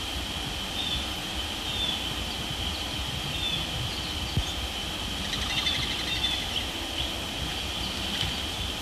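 Pond-side insect chorus: a steady high drone, with short bird chirps scattered through it and a low rumble underneath. About five seconds in comes a brief rapid pulsed call.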